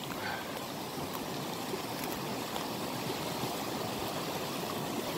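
Small woodland creek running: a steady rush of flowing water.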